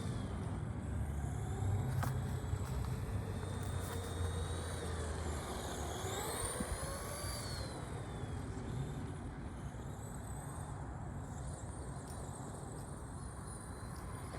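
Electric RC car's motor whining as the car drives, its pitch rising and falling with speed, most clearly about six to eight seconds in, over a steady rushing noise.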